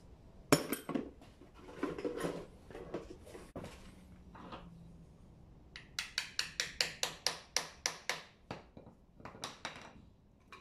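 Metal tools clanking and scraping against a differential housing and cover as the cover is worked loose with a screwdriver. There is one sharp clank about half a second in, then knocking and scraping. About six seconds in comes a quick even run of about a dozen light metallic taps, roughly six a second, with a few more near the end.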